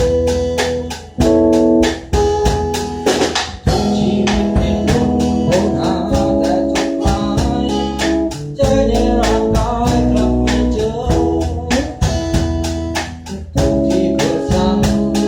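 Band music: electric guitar chords and bass guitar over a drum kit keeping a steady beat, with some singing.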